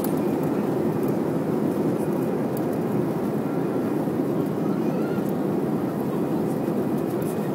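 Airliner cabin noise during the takeoff roll: the engines at takeoff power and the plane rolling fast along the runway, a loud, steady, even rumble.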